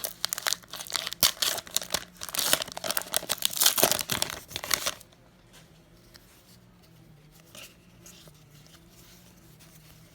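Trading card pack wrapper being torn open and crinkled for about the first five seconds, then it stops suddenly. After that there is only a faint steady low hum and a few soft clicks as the cards are handled.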